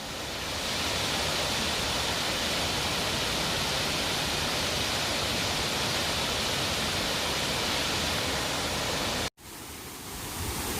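Waterfall rushing, a steady even roar of falling water. About nine seconds in it cuts off for an instant, then comes back quieter and swells again.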